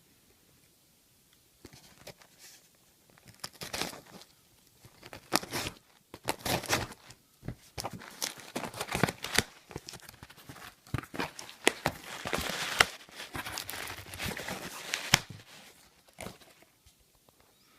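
A cardboard parcel being opened by hand: tape tearing and cardboard and packing material rustling and crinkling in irregular bursts.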